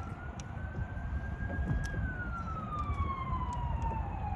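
A siren wailing, its pitch gliding slowly up for about two seconds, then sinking for about two more, and rising again sharply near the end.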